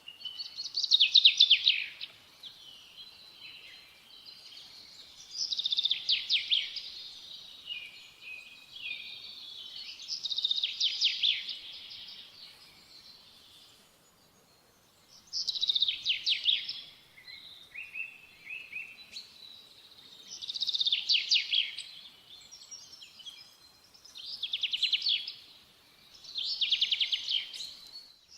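A songbird singing the same short phrase over and over, roughly every three to four seconds. Each phrase is a quick run of high notes that drops in pitch toward its end.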